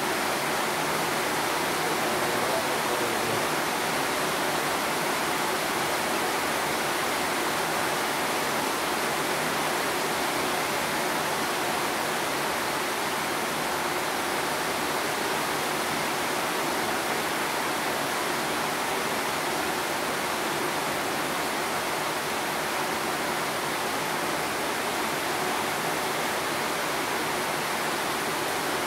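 Steady sound of rain, an even hiss that does not change.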